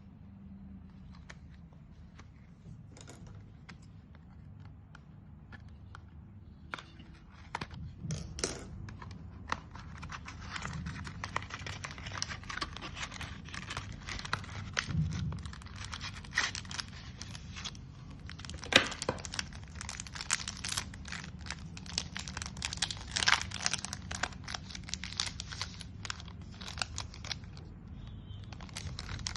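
A chocolate bar's plastic wrapper being handled and torn open. Faint rustles and clicks at first, then continuous crinkling and tearing, with one sharp crack about two-thirds of the way through.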